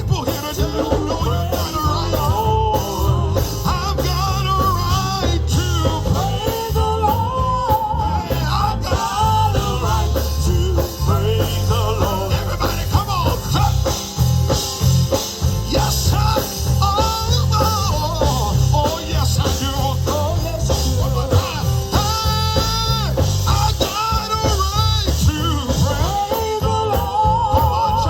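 Live gospel band music: organ runs over drums and bass in a fast praise-song groove.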